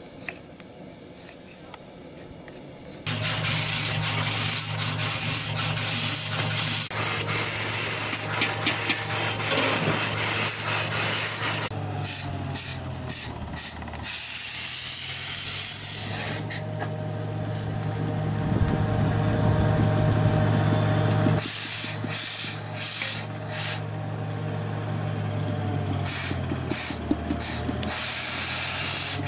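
Loud, steady hiss with a low hum underneath, most likely the stove burner under a pot of cooking dal. It starts suddenly about three seconds in, after a few faint knife taps, and dips briefly several times near the middle and end.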